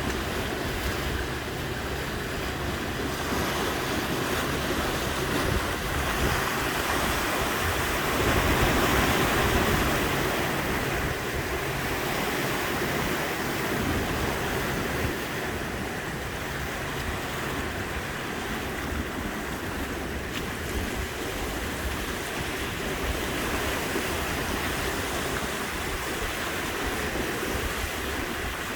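Ocean surf: a steady rush of waves washing in, swelling louder about a third of the way through.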